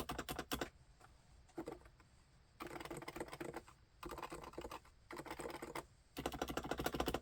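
Realforce full-size keyboard with silent Topre electrostatic capacitive switches and HiPro-profile Renso keycaps being typed on in quick bursts of rapid keystrokes with short pauses between, stopping at the very end.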